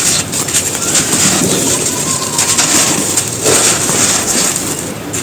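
Soft, dusty brick being crushed and crumbled: a dense, continuous run of crunching and crackling.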